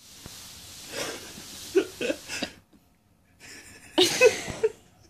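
Rustling of a dog bed and blanket as a Chihuahua paws and digs at it, with a few short breathy sounds mixed in, in two spells with a pause in the middle.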